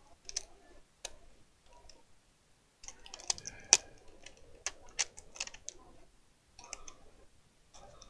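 Scattered light clicks and rustling of hands working at the small board on a laptop's LCD panel, peeling back its foil cover and handling the cable connector, with one sharp click in the middle.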